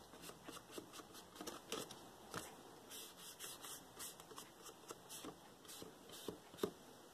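Ink blending tool dabbed and brushed along the edges of a paper pouch to ink the seam: a faint, irregular run of soft taps and scuffs, a few each second, with the paper rustling in the hand.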